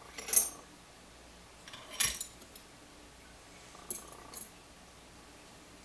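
Metal clinks and jingles as a small pin-tumbler lock and steel lock picks are handled: four sharp clinks with a short ring, the loudest about half a second in, others around two and four seconds in.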